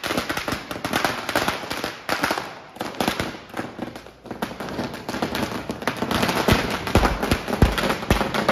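A string of firecrackers going off in rapid, irregular bangs and crackles. Several heavier bangs come in the second half.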